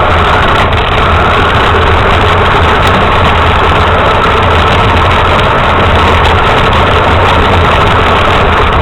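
Radio-controlled truck's motor running steadily, a loud, even drone with no change in pitch.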